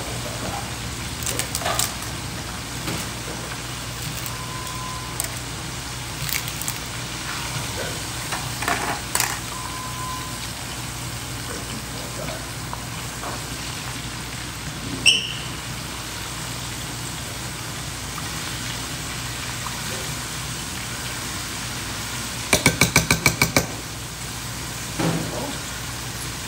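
Oil frying with a steady sizzling hiss, with scattered clinks of dishes and utensils and a quick run of about eight clicks near the end.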